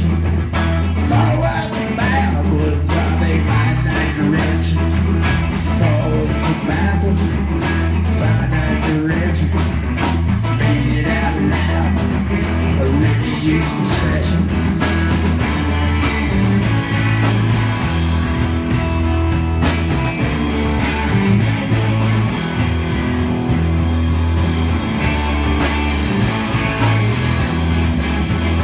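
Rock band playing live on electric guitar, electric bass and drum kit, loud and continuous, with a deep bass line and cymbal hits throughout.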